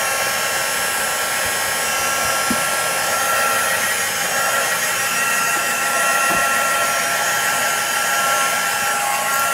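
Handheld craft heat tool blowing steadily with a constant high-pitched hum, drying wet watercolour paint.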